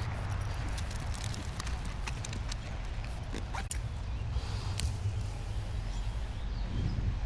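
Footsteps through riverbank brush, with scattered sharp snaps and cracks of twigs, over a steady low rumble.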